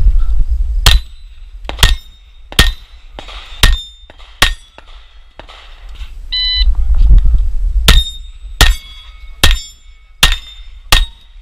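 A 9 mm Glock 34 pistol fired five times in quick succession. About six and a half seconds in, a shot timer's start beep sounds and five more quick shots follow, a string of about four and a half seconds. Steel target plates ring faintly after the hits.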